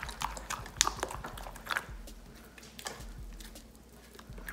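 Silicone spatula stirring thick yogurt marinade in a glass bowl: irregular wet squelches and light clicks and scrapes against the glass, thinning out toward the end.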